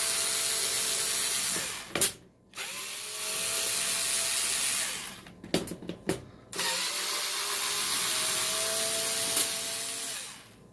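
Power screwdriver backing out small Torx T20 screws from a drill's housing. It runs in three spells of steady motor whine, each winding down as it stops, with sharp clicks and taps between spells.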